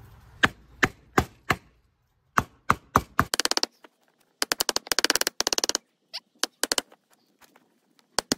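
Hammer blows on the end of a Jeep Cherokee blower motor's shaft, struck through a wooden guard block to drive the stuck motor out of its fan flange. Sharp taps about three a second at first, then, with the footage sped up, fast runs of blows like a rattle, then scattered single taps.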